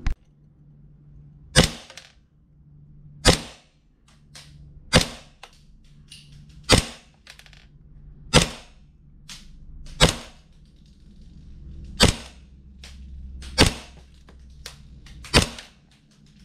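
Gas blowback airsoft 1911 pistol test-fired into a chronograph: nine sharp single shots, one about every 1.7 seconds, with fainter clicks between some of them.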